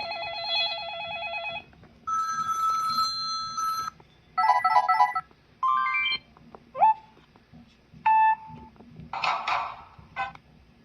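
A string of short electronic ringtones and alert tones from a Samsung Freeform phone, one after another with short gaps: a warbling trill, a held chord, quick runs of beeps, a rising swoop, a single beep, and two short hissy bursts near the end.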